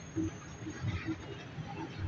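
Street-stall background: indistinct voices over a low, uneven rumble.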